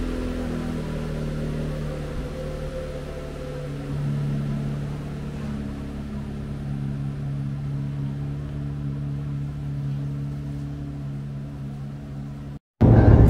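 Chevrolet Corvette C8 Z06's 5.5-litre flat-plane-crank V8 idling steadily as the car backs slowly out of the garage. Near the end it cuts to the louder drone of the car cruising at highway speed, heard from inside the cabin.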